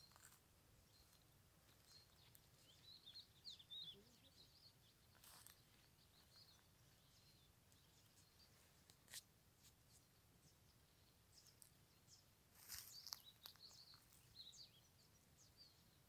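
Near silence with faint, distant European goldfinch twittering in short snatches, about three seconds in and again near the end, and a few soft clicks.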